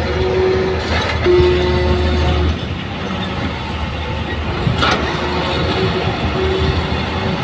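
Heavy diesel machinery at work as a Kobelco excavator loads soil into a dump truck: a deep engine hum that drops in level about two and a half seconds in, a held whine at times, and two short knocks.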